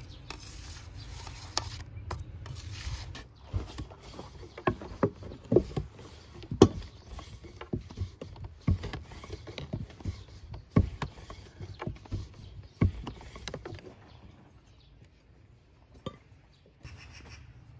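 Table knife cutting a block of butter on a ceramic plate, the blade knocking on the plate in a string of irregular sharp clicks, over a low rumble in the first half.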